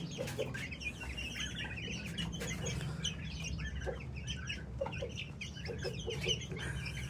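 Young Aseel chicks cheeping continuously, many short high calls overlapping, with a few lower clucks mixed in.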